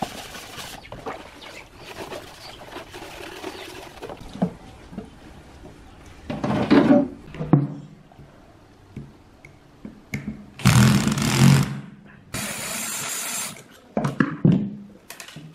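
Sponge scrubbing a plastic fan part in a basin of soapy water. Then, after some clatter of tools, a cordless drill runs in two bursts, the second a steady run of about a second as it turns a screw in an electric fan motor's casing.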